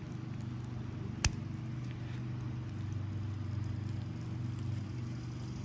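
Steady low hum, with a single sharp click about a second in from small tool work on the carburetor as the old needle seat is worked out.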